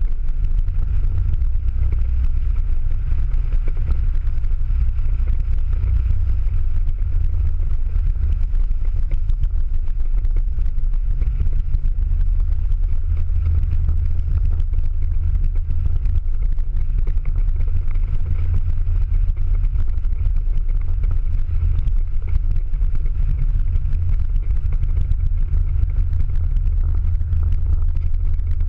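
A Ford Mustang Boss 302's V8 engine and its tyres on a wet track, heard from inside the cabin at speed. It makes a steady low drone with no clear rise or fall in revs.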